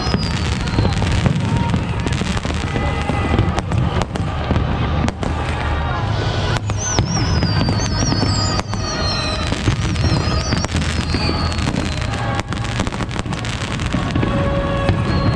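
A fireworks display going off in a rapid barrage of bangs and crackles over a continuous low rumble. Several high whistles slide down in pitch, near the start and again in the middle.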